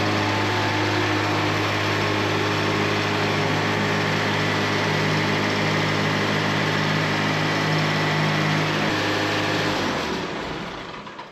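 Wood-Mizer sawmill's engine running steadily at a constant speed. About nine seconds in it shuts off and winds down to quiet.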